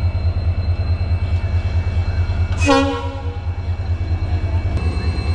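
An Indian Railways WDG4 diesel locomotive's EMD two-stroke engine running with a low, evenly pulsing beat as the locomotive approaches. About halfway through, its horn gives one short toot of about half a second.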